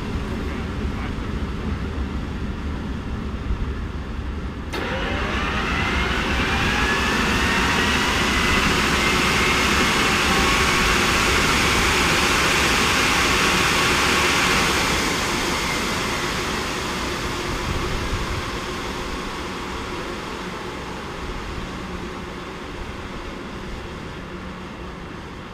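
Fairchild J44 turbojet running with a low rumble, then about five seconds in it spools up sharply with a rising whine over a rush of exhaust. It holds at high power for about ten seconds, then eases off, the sound fading gradually.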